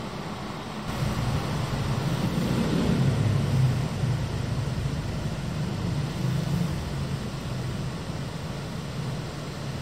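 Electric passenger train running out of a tunnel toward the station: a steady low rumble that starts about a second in, is loudest three to four seconds in, then eases a little.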